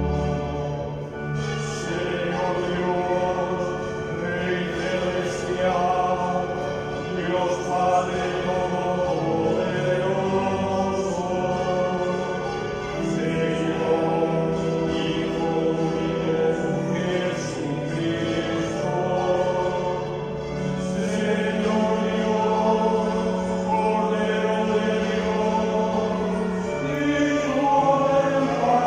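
Choir singing slow sacred music in long held chords, over a steady low part that changes pitch in steps.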